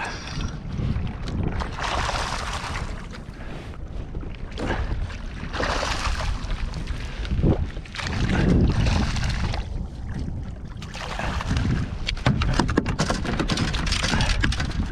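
A hooked flathead thrashing and splashing at the surface beside a plastic kayak, with wind gusting on the microphone. Near the end it is netted and brought aboard, with a run of clicks and knocks from the landing net and fish against the hull.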